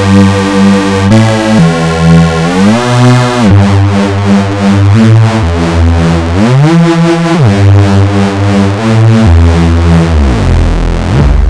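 Ableton Meld synthesizer preset playing a line of held, bass-heavy notes that glide up and down in pitch between them, its volume pulsing; the tone changes about three and a half seconds in.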